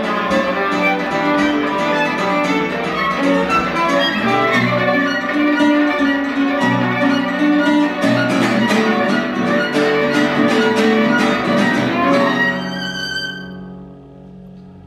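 Violin and classical guitar playing together: a bowed violin melody over rapid, even guitar strumming. About twelve seconds in they stop on a chord that rings on and fades away.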